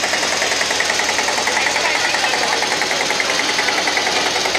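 Old tractor engine running steadily, with a rapid, even beat.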